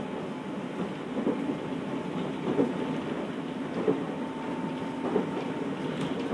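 Running noise inside a JR 211 series electric multiple unit motor car (MoHa 210): a steady rumble of wheels on rail, with a rail-joint clack about every 1.3 seconds.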